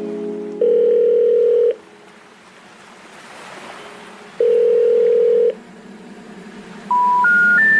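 Telephone call-progress tones: a steady ringing tone sounds twice, each about a second long. Near the end come three short beeps rising in pitch, the special information tone that signals a call cannot be completed.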